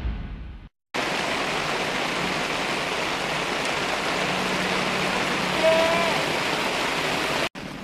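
Heavy rain pouring onto a paved plaza, a steady hiss. It opens on the fading end of a deep rumble, and a short wavering tone cuts through about six seconds in.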